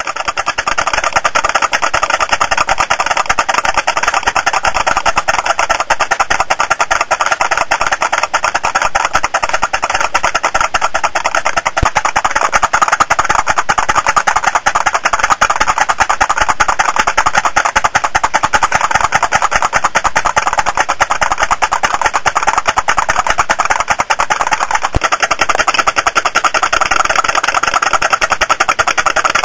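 Putt-putt (pop-pop) steam engine of a model boat running: a rapid, steady tapping that goes on without a break.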